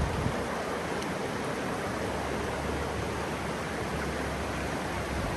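Steady rush of a mountain creek, an even hiss of running water.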